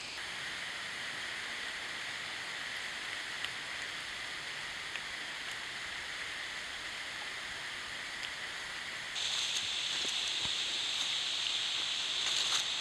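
Steady rush of water pouring over the grist mill's stone dam, a small waterfall, turning suddenly louder and brighter about nine seconds in.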